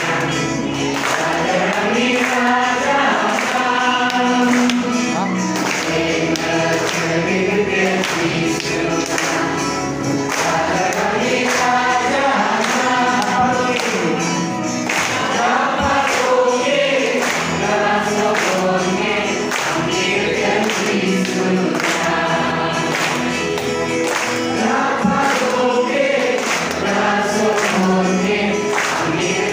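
A large congregation of men and women singing a hymn together.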